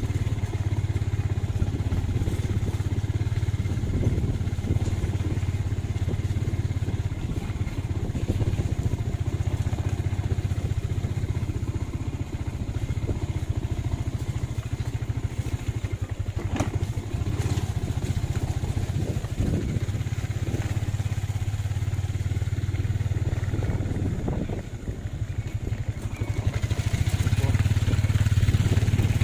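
A vehicle engine running steadily with a low drone, as on a ride; it grows a little louder near the end.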